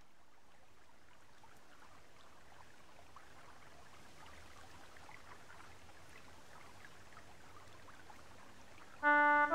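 Faint steady hiss with light crackle, then instrumental music cuts in suddenly with loud held chords near the end.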